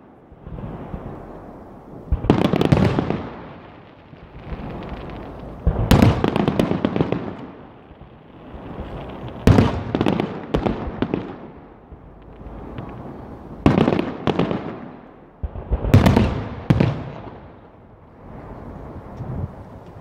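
Aerial firework shells bursting overhead. A sharp bang comes every three to four seconds, twice in quick succession near the end, and each bang is followed by crackling and a fading echo.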